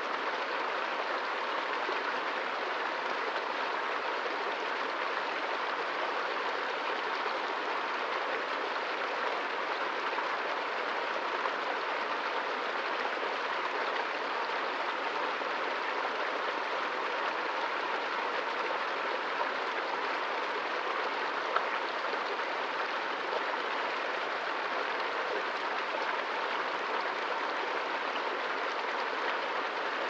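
Small forest stream running steadily, its water rushing through a tangle of fallen branches and logs.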